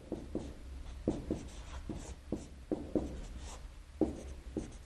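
Marker writing on a whiteboard: a quick, irregular series of short strokes and taps as characters are written.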